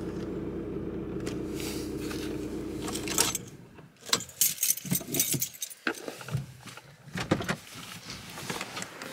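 A car engine running steadily, switched off after about three seconds, followed by a run of sharp clicks and jingling of keys being handled.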